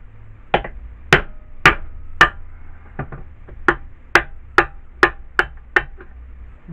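Hammer striking metal parts of an old air compressor during its tear-down: a series of about a dozen sharp taps, roughly two a second, each with a short ring.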